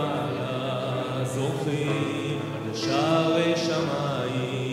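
Male cantor (hazan) singing a slow, chant-like wedding song into a microphone, holding long notes with slow pitch bends over a steady low drone.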